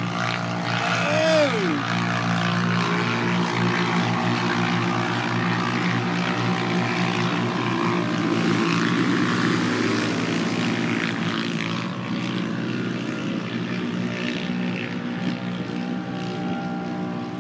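Steady hum of a camera drone's propellers, with race-car engines running on the track beneath it; one engine sweeps up and down in pitch about a second in.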